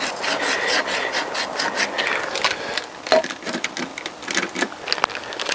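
Emery paper rubbed back and forth around a motorcycle rear wheel's bearing seat in the hub, a quick scratchy rhythm of about five strokes a second, cleaning corrosion off the seat before new bearings go in. The strokes thin out in the second half, with a few sharp clicks near the end.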